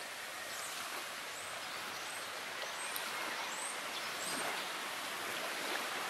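Steady rustling outdoor wind noise, with short high bird chirps about once a second, fading out after the first four seconds.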